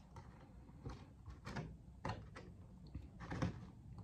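Thin painted polycarbonate body shell of an RC truck handled and turned over by hand, giving about five short plastic scrapes and crinkles.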